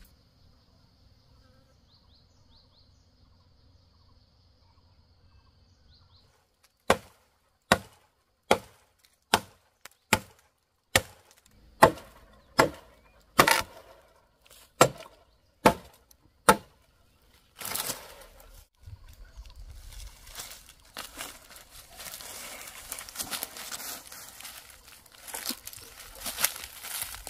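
A small tree trunk being chopped with a blade: about a dozen sharp chops, a little under one a second, in the middle of the stretch. Then dry leaves and brush rustle and crackle as the cut sapling is handled. A faint high steady tone sounds over the first six seconds.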